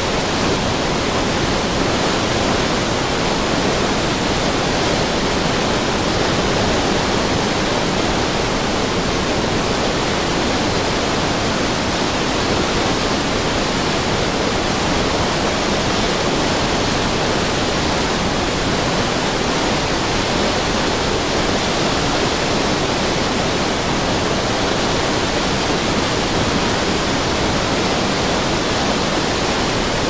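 River water pouring over a weir, a steady, unbroken rush of falling and splashing water.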